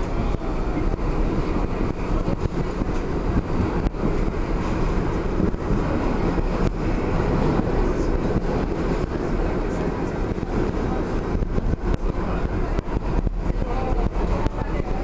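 New York City subway car running, heard from inside the car: a loud, steady rumble of wheels on rail with constant rattling clatter.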